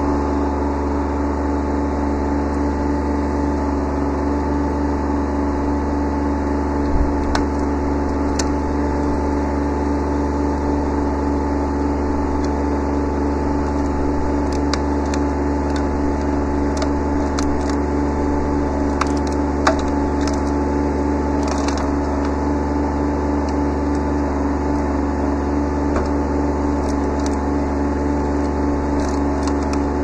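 Kubota B7100 sub-compact tractor's three-cylinder diesel engine running at a steady speed while its B670 backhoe arm crushes a pile of brush. Branches crack and snap now and then, with a low thud about seven seconds in.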